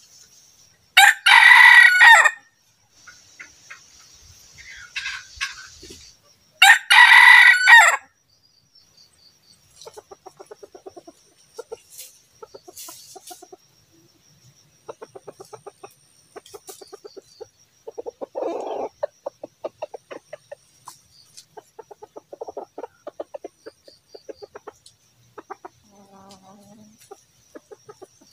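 A red jungle fowl rooster crows twice, loud and brief, a few seconds apart. After that come repeated short runs of soft, rapid clucking.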